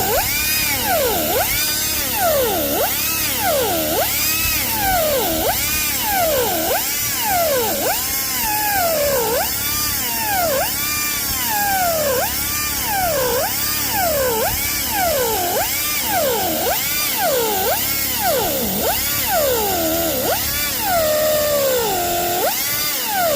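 Electric power tool working wood, its motor pitch rising and falling in a regular cycle about every second and a half as the tool is pressed into the wood and eased off again.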